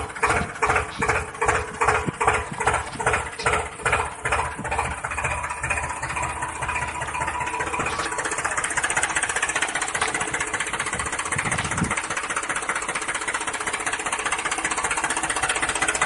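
Tractor engine chugging with slow, even thuds about twice a second, then picking up speed about five seconds in and running on as a steady, faster hum.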